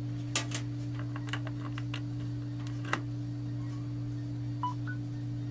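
A few sharp clicks and rattles as a USB cable is handled and plugged into the alarm clock's USB port. Near the end comes a brief, faint electronic tone: the phone's chime that it has started charging. A steady low hum runs underneath.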